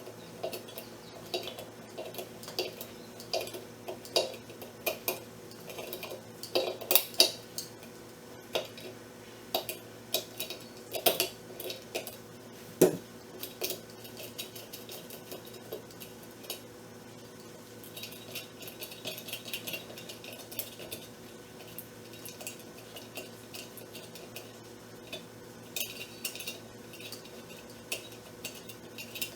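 Pliers working the thermostat nut loose from a travel kettle's metal base: irregular metallic clicks and clinks of tool on metal parts.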